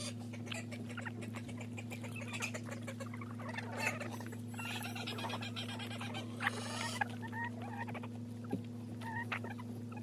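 Chickens feeding: many light, scattered pecking and scratching clicks with short soft clucks and chirps, over a steady low hum.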